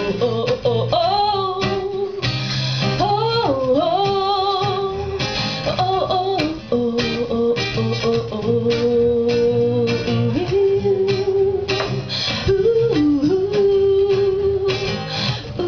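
A woman singing solo with an acoustic guitar, strumming steadily under her voice; her long-held notes waver with vibrato.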